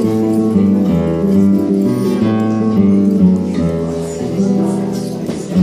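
Live solo acoustic guitar music: slow plucked chords ringing over held bass notes that change about once a second.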